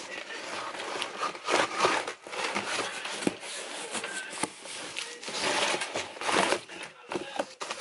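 Large cardboard box being pulled and torn open by hand, without scissors: irregular rustling, scraping and tearing of cardboard, with scattered small knocks.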